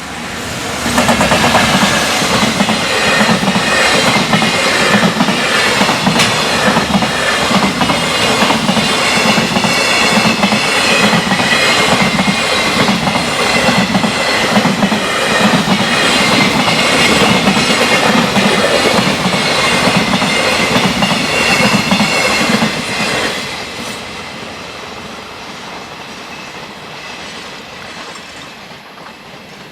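Freight train passing at high speed, its wheels clattering over the rail joints in a fast, even rhythm. About 23 seconds in the last wagons go by and the sound drops suddenly, then fades away.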